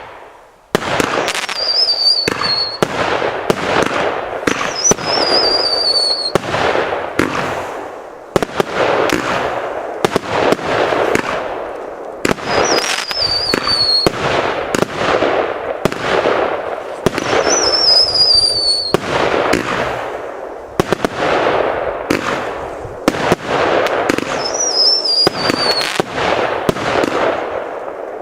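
Svea 'Sheriff' firework going off in a continuous run of sharp bangs and dense crackling. A high whistling tone that slides slightly down comes through about every few seconds, and there are brief lulls near the end of the first third and about two-thirds of the way in.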